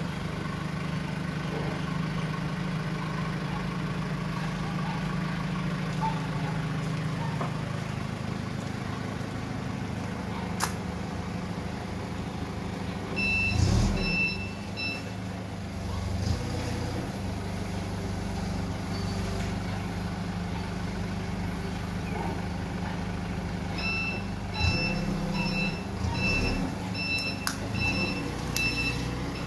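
Mitsubishi forklift's engine running steadily as it manoeuvres, with its reversing alarm beeping about two times a second in two spells: a short run about halfway through and a longer run near the end.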